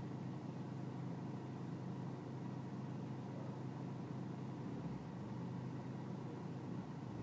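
BMW E46 320Cd's four-cylinder common-rail diesel idling with a steady low hum. The owner calls it a rough idle and is chasing it through the air-mass readings.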